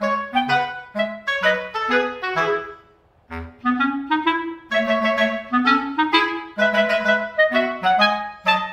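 Background music: a tune of short, separate pitched notes on a woodwind-like instrument, with a brief break about three seconds in.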